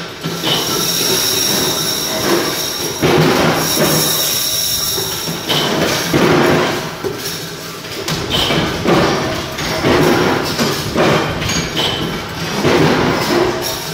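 2D CNC wire bending machine running, feeding and bending wire in repeating cycles. A louder surge of metallic squeal and clatter comes every two seconds or so, over a steady high whine.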